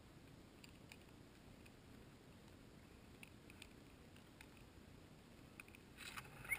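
Near silence with faint scattered ticks, then a short burst of crackling about six seconds in, loudest just before the end.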